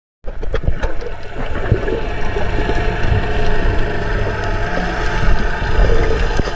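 Muffled underwater noise picked up by a submerged camera: a steady low rumble with a hiss of water, starting after a split-second gap.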